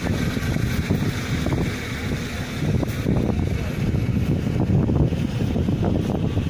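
Wind buffeting the microphone: a loud, uneven rumble that rises and falls in gusts.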